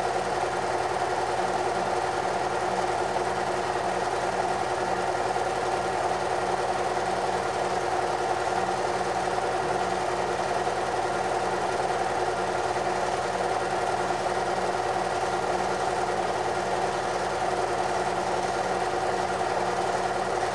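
Film projector running, a steady mechanical whirr with a faint regular pulse from the film transport.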